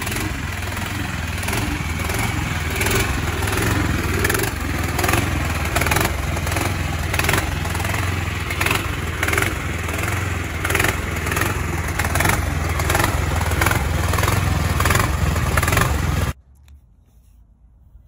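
Small gasoline engine swapped into a golf cart, running steadily and loud with a rough, clattery note. It stops abruptly near the end.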